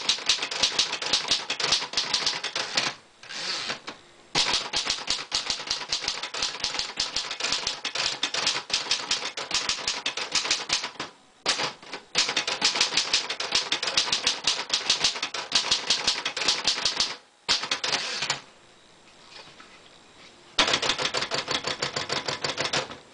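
A 1941 Royal Arrow manual portable typewriter being typed on: quick runs of keystrokes with the typebars clacking against the platen, broken by brief pauses. Near the end there is a quieter stretch of about two seconds before the typing resumes.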